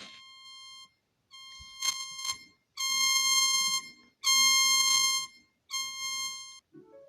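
Emergency alert alarm tone: a buzzing electronic beep near 1 kHz, sounding in five long pulses of about a second each with short gaps between them, loudest in the middle pulses.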